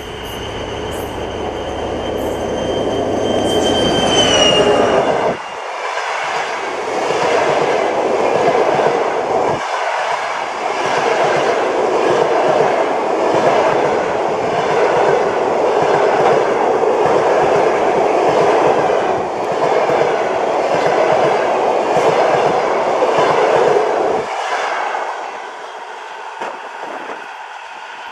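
TEP70 diesel locomotive passing at speed, a low engine rumble under a high whine that drops in pitch about four seconds in as it goes by. Then its passenger carriages roll past with a steady rushing noise and rhythmic clickety-clack of the wheels over the rail joints, ending suddenly about 24 seconds in and fading away.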